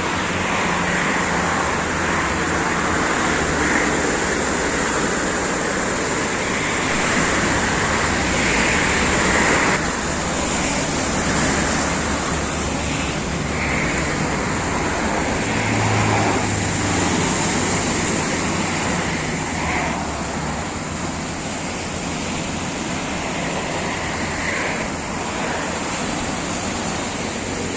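Steady rushing seaside ambience: surf breaking on the shore mixed with road traffic going by, with a low engine hum about sixteen seconds in.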